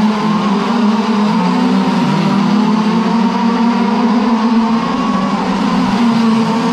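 Several 1/5-scale gas-powered RC race cars with small two-stroke engines buzzing at high revs together, their pitches wavering up and down as they go around the oval.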